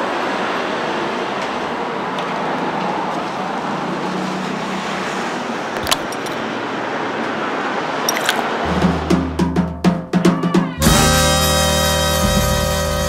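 A steady noisy hiss. About nine seconds in, background music comes in with drum hits over a bass line, and it becomes a full tune about two seconds later.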